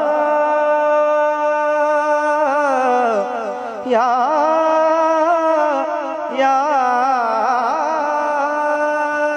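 A singer holding long, ornamented vowel notes as the closing melisma of an Urdu naat. The passage falls into three phrases, with breaks about four seconds and about six and a half seconds in. Each phrase opens with quick wavering turns, then settles on a steady held pitch.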